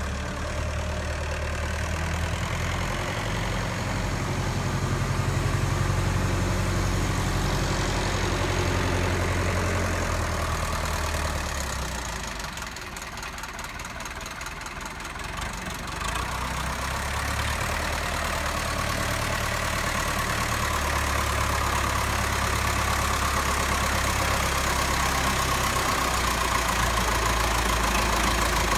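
Vintage MAN diesel tractor engine running, quieter for a few seconds near the middle, then louder as the tractor drives in close.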